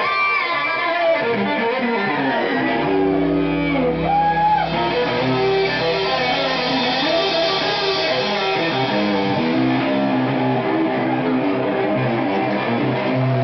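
Loud live band music led by an amplified cello played with a bow, its sustained notes sliding in pitch.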